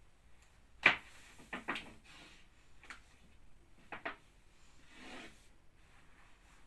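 Long wooden rolling pin knocking and rubbing on a round wooden pastry board as starch-dusted baklava dough sheets are rolled and unrolled: a sharp wooden knock about a second in, a few lighter knocks after it, and soft rubbing near the end.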